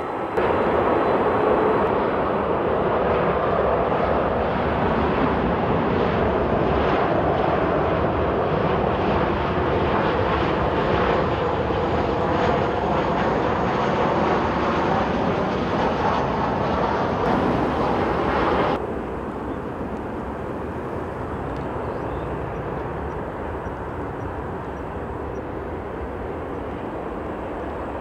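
Boeing 767-300ER airliner's twin turbofan engines, heard as loud, steady jet noise for about the first 19 seconds. It then drops sharply to a quieter, steady engine hum.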